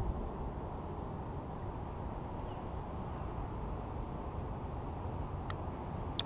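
Steady low outdoor rumble, with a few faint bird chirps and a sharp click near the end.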